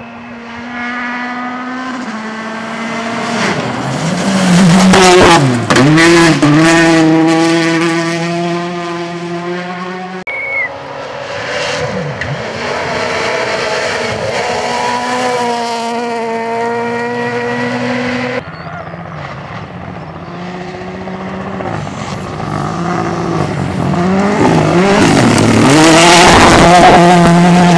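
Rally cars at full attack on gravel stages, one after another in separate clips: engines revving hard and dropping in pitch at each gear change and lift-off. The loudest passes come about five seconds in and near the end, the last one a Mini WRC.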